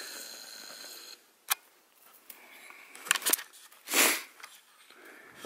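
A Parson Russell terrier sniffing with its nose down in the snow: a few short sniffs, the loudest about four seconds in, and one sharp click about a second and a half in.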